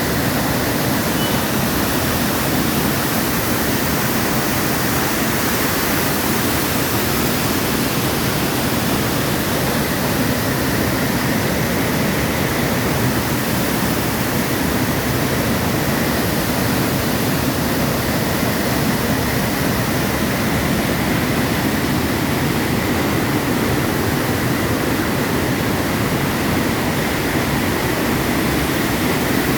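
Waterfall pouring steadily: a loud, unbroken rush of falling water.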